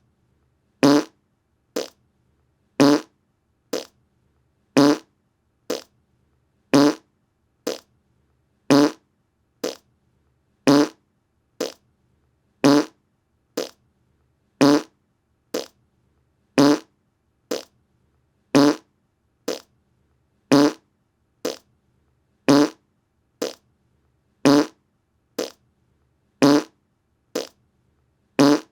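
A short fart sound repeating about once a second, alternating a longer, louder blast with a shorter, quieter one.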